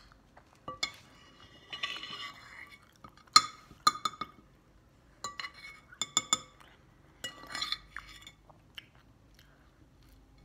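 Metal fork clinking and scraping against a china dinner plate while cutting pieces off a burrito: about a dozen short, ringing clinks in small clusters, with a couple of brief scrapes.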